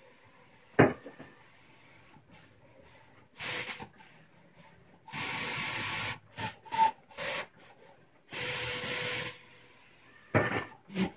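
Roland wide-format printer working on printed vinyl graphics: the print carriage sweeps across in three hissing passes of about a second each. A sharp knock about a second in is the loudest sound, with two more clacks near the end.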